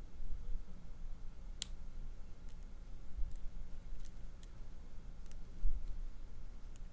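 Lock pick and tension wrench working in the keyway of a small Union padlock: scattered light metallic clicks and ticks from the pick on the pins, one sharper click about a second and a half in, over low handling bumps.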